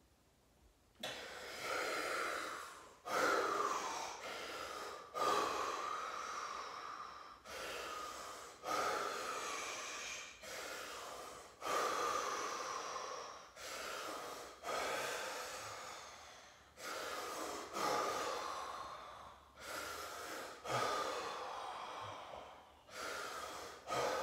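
A man breathing deeply and heavily while immersed in an ice bath, the hard breathing of cold exposure. The breaths start about a second in and follow one another steadily, roughly one every second or so, each sharp at its start and trailing off.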